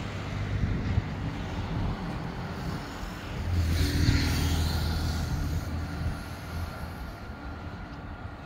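Street traffic on a city road: a car passes about four seconds in, its engine hum and tyre noise swelling and then fading.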